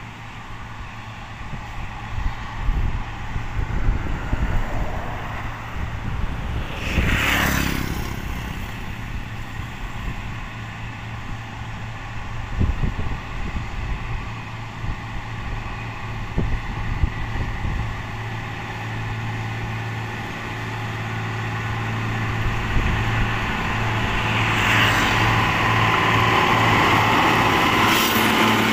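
CAT 140G motor grader's six-cylinder diesel engine running steadily as it works a windrow of crushed rock, getting louder as it comes up and passes close near the end. About seven seconds in, a brief whoosh rises and fades, like a vehicle going by on the road alongside.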